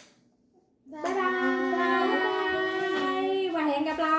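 A woman and young children calling out a long, drawn-out, sing-song goodbye together, their voices held for about three seconds after a second of near silence.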